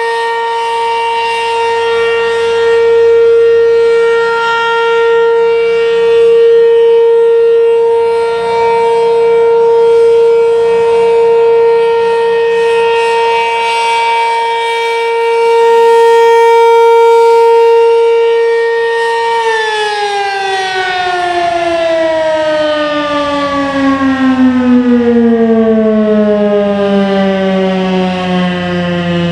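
ACA P-15 Penetrator rotating storm siren sounding its steady alert tone, swelling and fading every few seconds as the head turns. About two-thirds of the way through it cuts power and starts winding down in a long falling pitch. The rotation is slightly uneven, which the uploader puts down to a slipping drive chain.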